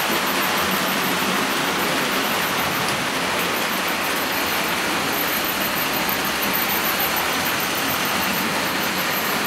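Hornby model trains running on the layout track: a steady rolling rattle of wheels and motors, with a fast, faint ticking on top.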